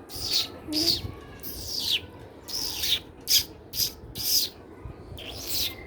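Bird-like chirping made by a person imitating a bird: a string of short, high-pitched chirps, each falling in pitch, about two a second.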